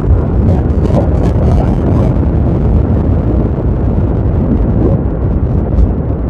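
Wind buffeting the microphone over the running of a Yamaha Aerox scooter cruising at a steady road speed of about 55 km/h, a dense steady rumble with no letting up.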